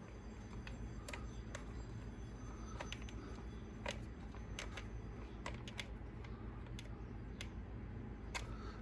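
Faint, irregular small clicks and taps of a hand tool working a nylon lock nut tight on a plastic RC truck part, over a low steady hum.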